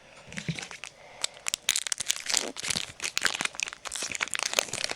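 Crinkling and tearing of a trading-card pack wrapper being opened and crumpled by hand: a dense run of crackles and sharp little clicks that builds up about a second in.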